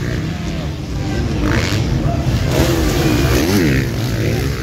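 Motocross bikes racing on the track, their engines revving, the pitch rising and falling as they accelerate and pass.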